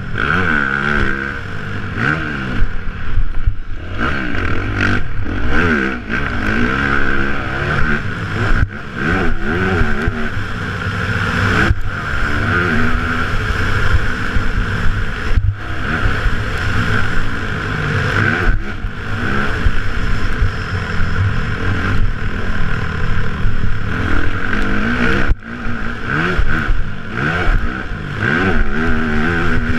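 Motocross dirt bike engine, heard from the rider's helmet, revving up in repeated rising sweeps through the gears and dropping back each time the throttle is shut, with a few brief sudden cuts, over steady wind and ground noise.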